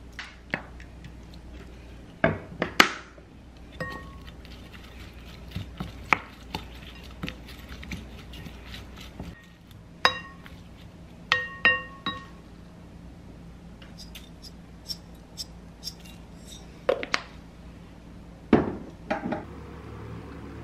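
Wooden spoon knocking and scraping against a glass mixing bowl while tossing shredded green onion salad: irregular clinks, some leaving a brief glassy ring, with a louder knock near the end.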